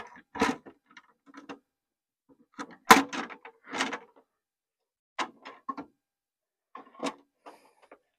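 Clicks and knocks from handling the riving knife and plastic blade guard assembly of a Dewalt DWE7491 table saw as they are changed over: a string of separate knocks, the loudest about three seconds in.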